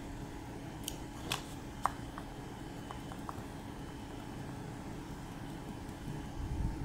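Steady low hum of an aquarium air pump driving sponge filters, with a few sharp ticks about a second in and a low rumble near the end.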